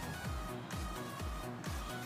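Background electronic music with a steady bass-drum beat, about two beats a second.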